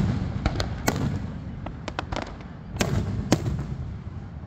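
Fireworks display: about half a dozen sharp bangs in quick, irregular succession over a steady low rumble.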